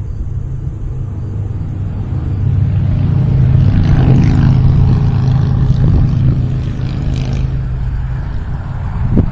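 Small electric motor of a UMX Ultrix RC plane running up as it is launched and flown, under heavy wind rumble on the microphone; louder from about two and a half seconds, easing off again near the end.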